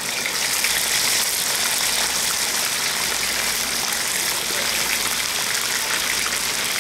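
Whole snapper deep-frying in hot oil in a wok: a loud, steady sizzle that grows louder within the first second as the fish goes fully into the oil.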